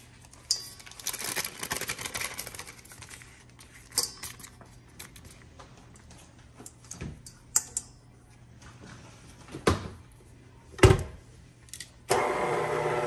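Kitchen handling sounds as sticks of butter are unwrapped and put into the mixing bowl: paper rustling early, then a few separate knocks and clinks against the bowl. About a second before the end a steady, louder hum begins.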